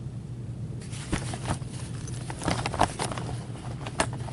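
Irregular sharp clicks and taps, several in quick clusters, over a steady low hum.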